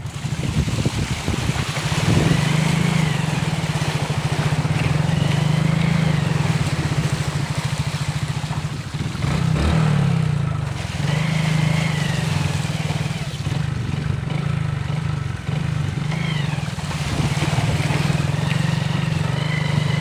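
Royal Enfield Bullet single-cylinder motorcycle engine running steadily under way while the bike wades along a flooded road, easing off briefly about halfway through before pulling again.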